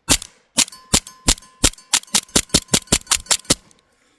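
Beretta-style CO2 air pistol fired in a rapid string of about fourteen sharp shots, quickening as it goes and ending abruptly. Under the shots there is a steady ring from the steel target.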